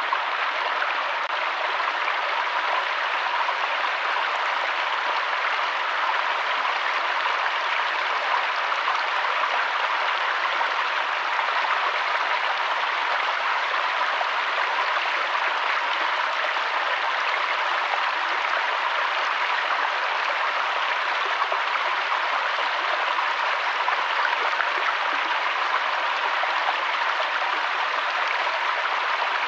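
Flowing water rushing steadily, an even, unbroken hiss with no change in level.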